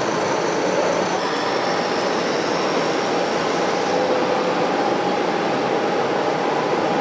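Electric drive motors and gearboxes of radio-controlled scale model tractors whining steadily over a constant rushing noise; the high whine shifts down in pitch about a second in.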